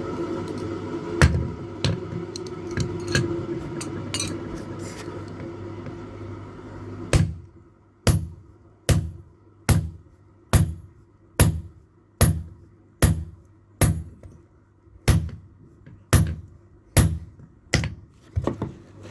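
Background music fading out over the first several seconds, then a blacksmith's hand hammer striking steel on an anvil in a steady rhythm of a little more than one blow a second. Each blow rings with a high metallic ping while a hammer head is being forged.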